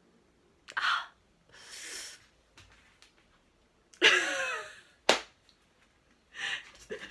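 A woman's breathy vocal sounds: a sharp breath, then a sigh-like exhale, then a loud burst of laughter about four seconds in, a short click, and more breathy vocal sounds near the end.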